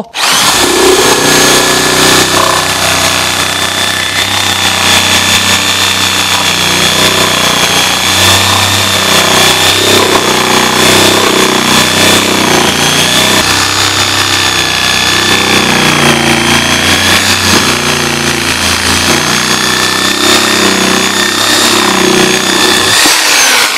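Corded reciprocating saw running with a double-edged M.PS blade, cutting through a wooden beam and the steel screws driven into it. The motor's steady high whine runs over the blade's chatter.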